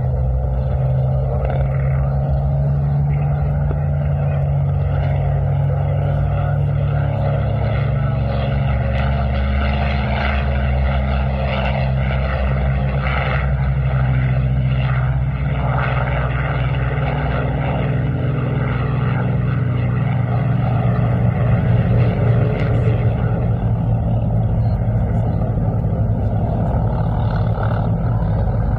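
World War II piston-engined fighters running at take-off power: a Curtiss P-40's V-12 engine through its take-off roll and lift-off, then a Polikarpov I-16's radial engine on its take-off run. A loud, steady propeller drone.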